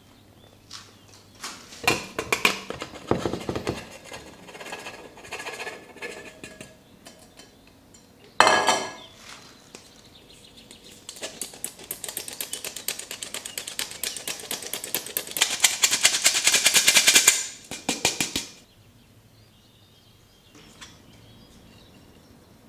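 Flour being sifted through a sieve into a bowl of batter: a fast, rattling run of clicks that builds over several seconds and stops suddenly. Earlier there is some scattered clatter and one sharp knock.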